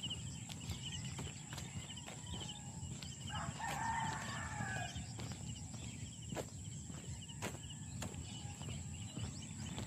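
A rooster crows once, about three seconds in, lasting about a second and a half. Faint high chirps repeat throughout, with scattered footsteps and a steady low rumble.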